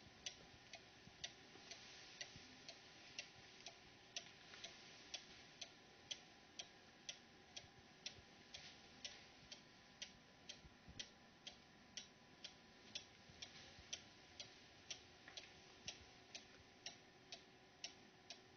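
Black Forest cuckoo clock's eight-day mechanical movement ticking faintly and steadily, about two ticks a second.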